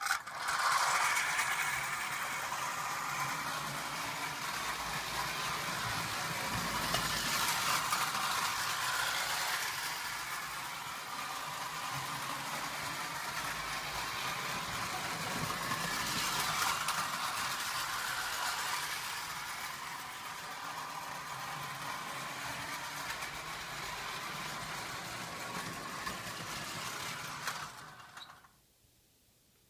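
Marx plastic windup toy train running on tinplate track: the clockwork spring motor whirring and the wheels clattering along the rails, growing louder and fading as it circles the loop. It starts suddenly and stops abruptly near the end.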